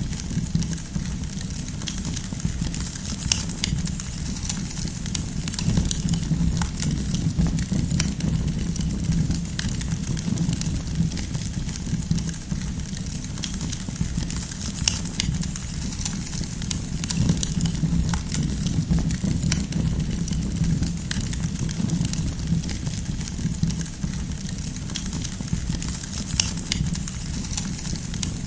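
Wood fire burning steadily, with a low rushing rumble of flames and frequent irregular crackles and pops from the burning firewood.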